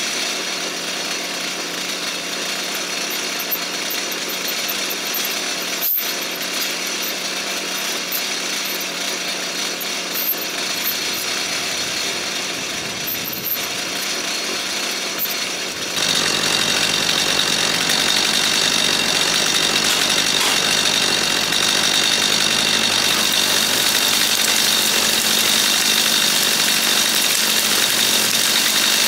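Gas chainsaw running steadily through brush and saplings; about halfway through it gets louder and fuller. A single sharp click comes about six seconds in.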